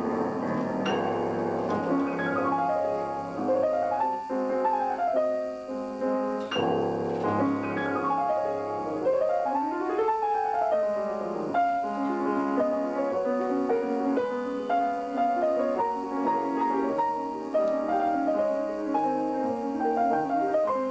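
Solo classical keyboard music played live, with held bass notes under fast runs that sweep up and down in pitch.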